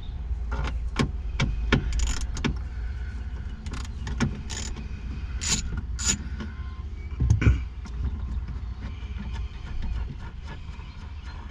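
Irregular clicks and knocks of a socket wrench and the plastic taillight housing being worked while the taillight screws are undone, over a steady low wind rumble on the microphone.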